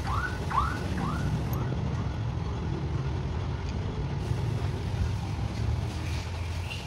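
Low, steady rumble of running motor vehicles. In the first second it is overlaid by a quick run of short chirps, about three a second.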